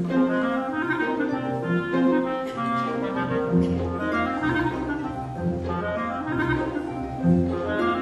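Solo clarinet playing a slow melody of held notes over a string orchestra accompaniment. The low strings grow fuller about halfway through.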